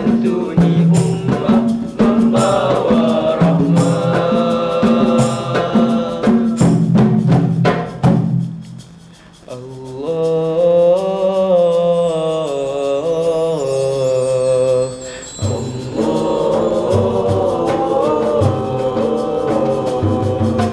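Male nasyid vocal group singing Malay devotional songs in harmony, over a steady hand-percussion beat. Just past the middle the beat drops out and the voices sing held, swelling chords for several seconds, then the beat returns.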